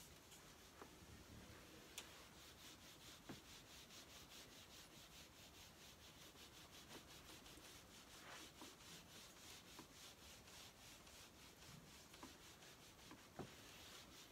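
Faint rubbing of an eraser wiping marker off a whiteboard: quick, even back-and-forth strokes, with a few light taps against the board.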